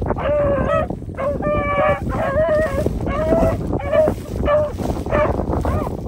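Pack of beagles baying, about eight drawn-out bays one after another with some voices overlapping, typical of hounds running a rabbit's scent.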